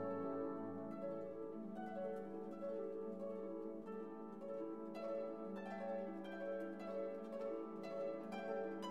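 Instrumental background music of plucked string notes over a held low tone.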